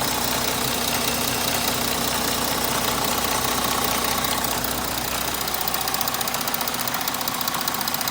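3.0 TDI V6 diesel engine running steadily with a fast, even ticking over it, the noise it makes before any repair.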